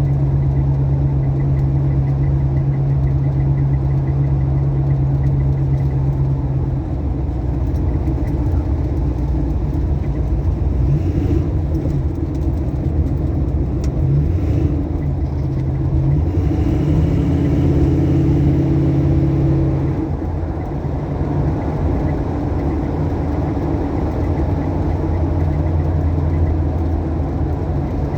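Classic Ford Mustang Mach 1 engine running on the road at low speed. Its note holds steady for the first several seconds, then changes pitch a few times as the car speeds up and slows.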